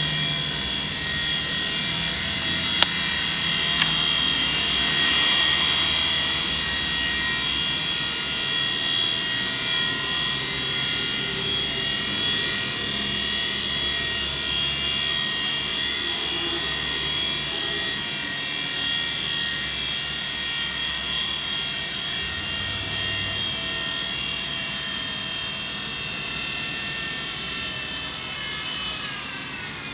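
WL Toys V911 micro RC helicopter's electric motors whining steadily in flight, a high whine made of several tones. Near the end the whine falls in pitch as the rotor spins down on landing. Two sharp clicks about 3 and 4 seconds in.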